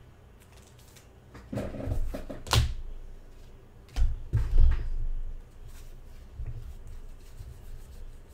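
Sports trading cards and packs being handled on a table: soft rustling and scattered clicks, with a sharp knock about two and a half seconds in and a heavier knock about four seconds in.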